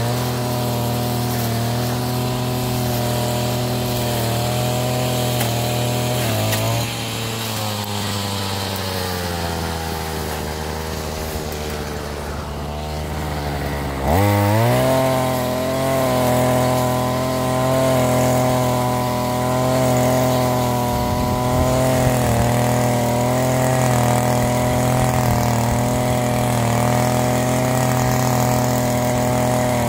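Backpack brush cutter's two-stroke engine running at high speed while cutting weeds. About a fifth of the way in, the engine eases off and its pitch sags slowly lower. About halfway, it revs sharply back up, louder, and holds a steady high note.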